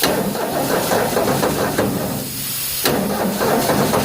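Ford 302 V8 engine running rough and uneven, sputtering. It sags about two seconds in and picks back up near the three-second mark, typical of the hard starting the owner puts down to not having it opened up.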